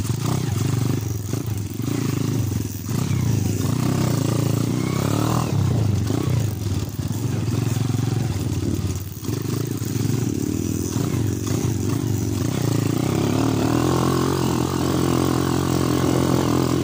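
Underbone motorcycle engine running as the bike is ridden along a dirt trail, revs rising and falling, settling to a steadier note near the end.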